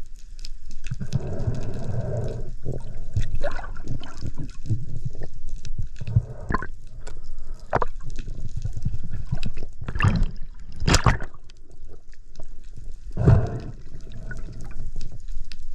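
Water sloshing and gurgling around an action camera in a spearfishing dive, with scattered clicks and a few louder bursts of water noise about ten and thirteen seconds in.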